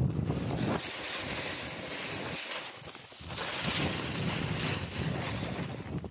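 Snowboard edge carving and scraping across firm groomed snow: a steady hiss that drops away briefly about halfway through as the board changes edges between turns, then builds again.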